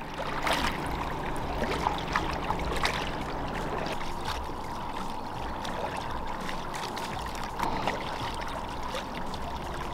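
Kayak paddles dipping and splashing in lake water, with water trickling off the blades, under a faint steady hum.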